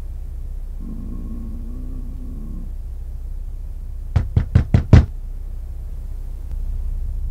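Five quick, sharp knocks on a door, the last one the loudest, over a steady low rumble.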